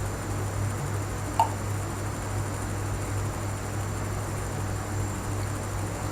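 Steady low room hum, with one short gulp about a second and a half in as a sip of soda is swallowed.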